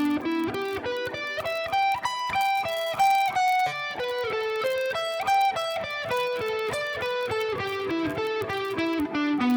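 Clean electric guitar on its own, playing a lick slowly one note at a time: a few E minor pentatonic notes climbing into triad arpeggios (G major, E minor, B minor, A minor), then a descending run near the end.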